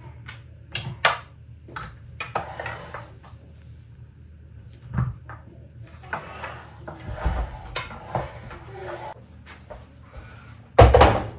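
Objects being handled and set down: irregular knocks and clatters, with one louder thump near the end.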